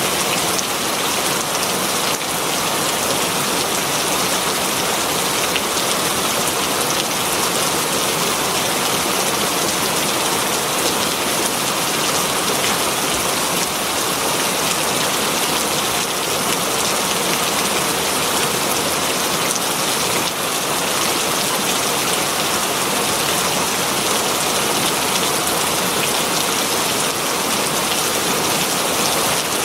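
Heavy rain falling steadily on leaves, an even, dense hiss of countless drops.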